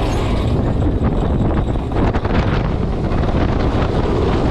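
Wind rushing over the microphone over the rumble and clatter of an Intamin inverted roller coaster's wheels on the track as the train runs at speed.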